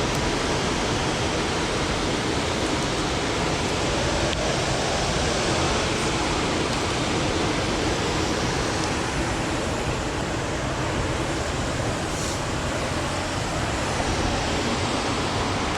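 Steady roar of water pouring over the dam falls, an even rushing that holds level throughout.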